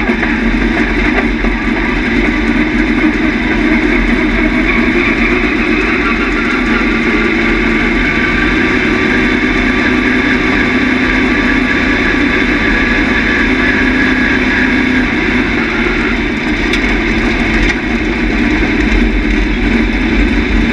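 Steel head dirt late model race car's V8 engine running steadily, heard from inside the cockpit.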